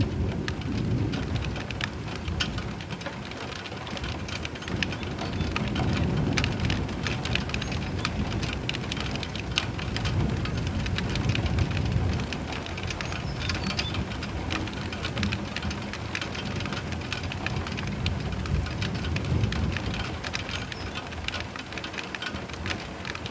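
Steady rain with a dense patter of individual drops, under a low thunder rumble that swells and fades several times.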